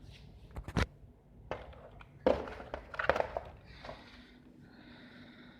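Unboxing and handling noise from a gaming keyboard and its packaging: several sharp knocks and clacks in the first three seconds or so, then soft rustling.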